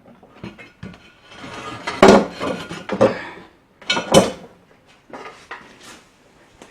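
Metal clanks and rattles as a jack stand is set and a lawnmower is lifted onto it, with the loudest clanks about two seconds and four seconds in.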